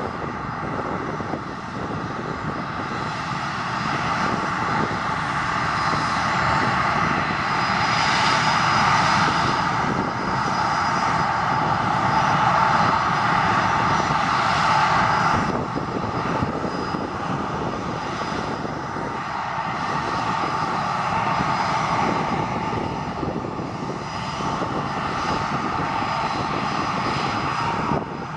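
Canadair Challenger business jet's rear-mounted turbofan engines running at low power on the ground: a steady rush with a high whine. The whine eases abruptly about halfway through, then carries on steadily.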